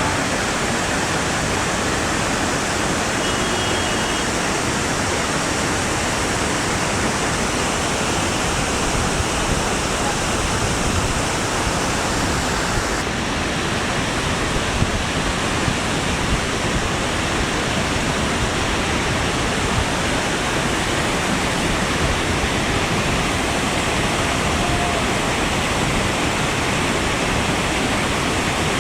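Rupse Falls, a tall waterfall, pouring and crashing in a steady, loud rush of water; the highest hiss thins slightly about halfway through.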